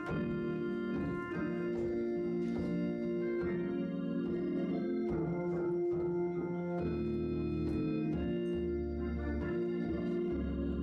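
Organ playing slow, sustained chords, with deep bass notes coming in about seven seconds in.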